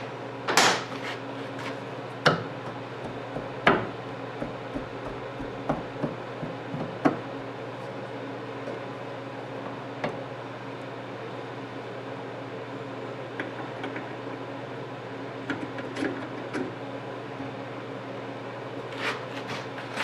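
Scattered metal clinks and knocks from hand work on a truck door hinge as the hinge pin and brass bushing are fitted back in. The sharpest knocks come in the first four seconds, with lighter ones spread through the rest, over a steady low hum.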